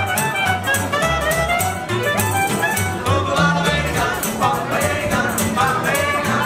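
Background music with a steady beat and a bowed-string melody, starting abruptly.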